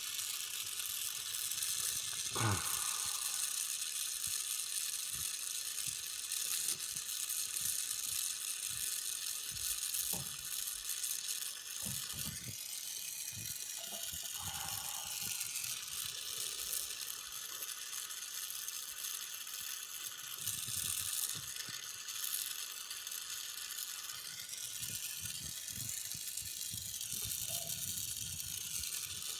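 Gas torch flame hissing steadily while an aluminum radiator is heated for soldering, with scattered clicks, light knocks and scraping of metal against the radiator.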